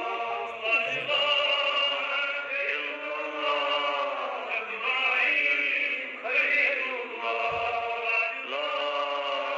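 A man's voice reciting a naat, a devotional Islamic chant in praise of the Prophet, sung in long held phrases with gliding melodic ornaments and short pauses between them.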